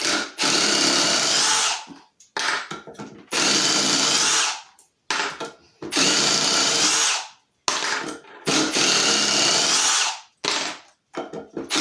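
Milwaukee M18 Fuel Surge hydraulic impact driver driving 3-inch deck screws with a T25 bit, in five runs of about a second and a half each with short pauses between. It runs smoothly and fairly quietly for an impact driver.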